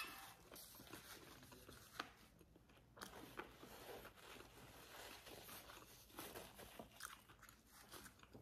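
Faint close-up chewing of a mouthful of fried food: soft crunches and small wet mouth clicks, with a sharper click at the start and another about two seconds in.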